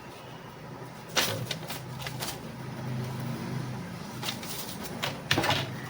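Handling noise as an Ethernet cable tester and its paper manual are picked over: scattered light clicks and rustles, about half a dozen, over a faint low hum.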